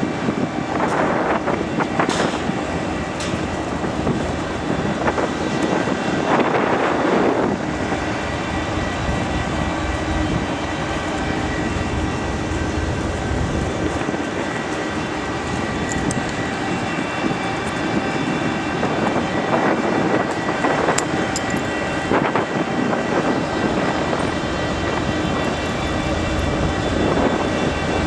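Steady drone of a ferry's engines and machinery underway, several constant tones over a rumbling noise, with a few brief whooshing gusts of wind or sea.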